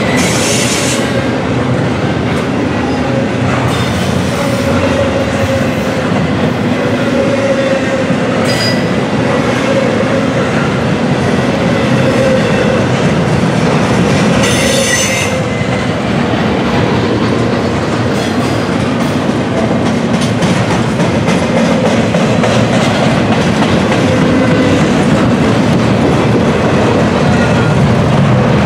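Double-stack intermodal freight cars rolling past at close range: a steady rumble of steel wheels on rail with clickety-clack from the rail joints. Short high wheel squeals come through near the start, about 8 seconds in and about 15 seconds in.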